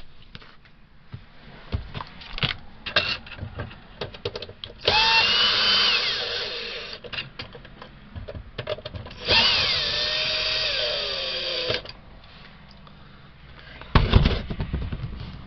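Cordless drill/driver driving screws into an RV power converter's mounting: two runs of about two seconds each, the motor's pitch dropping toward the end of each run. Light clicks and handling knocks come between the runs, and a loud knock comes near the end.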